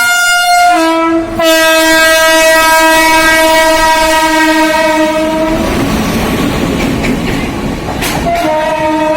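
WAP7 electric locomotive's air horn blowing a long blast. Its pitch drops slightly about a second in, and it breaks off after about five and a half seconds into the rushing noise of the train running past. The horn sounds again near the end.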